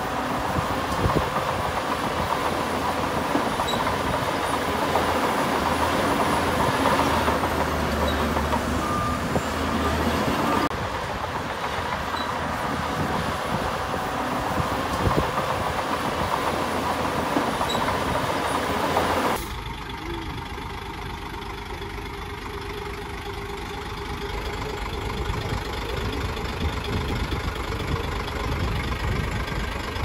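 Heavy earthmoving machinery working: diesel engines of bulldozers and dump trucks running under load with a steady mechanical rumble. The sound changes abruptly twice, about eleven and nineteen seconds in, and is quieter after the second change.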